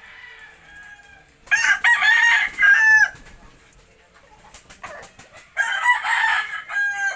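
A rooster crowing twice. Each crow lasts about a second and a half, with a rising-and-falling pitch in several segments. The first starts about a second and a half in, the second near the end.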